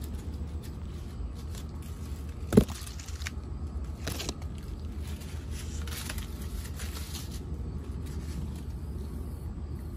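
Dry corn leaves and husks crackling and scraping as a plant is handled, with a sharp snap about two and a half seconds in, over a steady low rumble.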